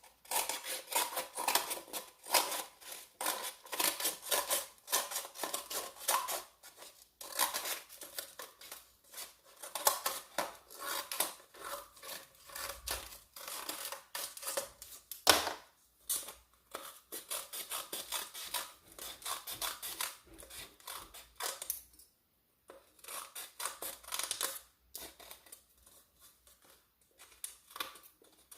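Scissors snipping over and over as they cut around a paper cup. There is a single louder knock about halfway through and a short pause a little later.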